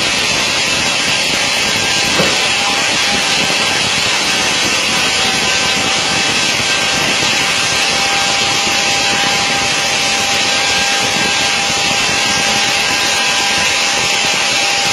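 Airliner noise: a steady loud rush of engines and airflow with a faint steady whine on top.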